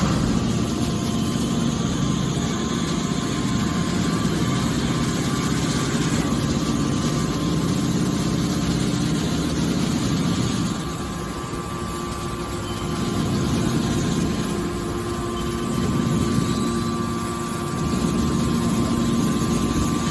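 Hydraulic can baler running: a steady motor-and-pump hum that eases off briefly about halfway through and again a few seconds later, then builds back up.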